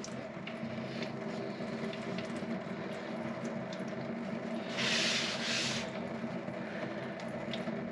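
Old engine oil draining from the open sump of a 1971 VW Beetle engine into a plastic drain pan, a steady trickle over a steady low hum. About five seconds in a louder hiss rises for about a second.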